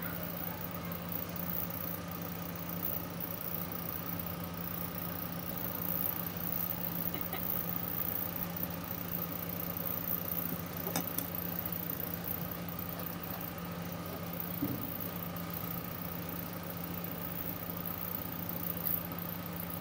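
A steady low mechanical hum throughout, with faint sticky squishing and small clicks of flour-and-oil homemade slime being kneaded and pressed by hand.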